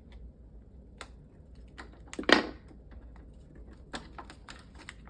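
A plastic craft gadget and its packaging being handled and pried open by hand: scattered sharp clicks and taps, with one louder knock a little over two seconds in.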